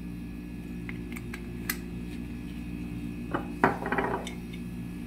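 Bottles being handled and set down on a stone countertop: light knocks and clicks, with a louder clatter about three and a half seconds in, over a steady low hum.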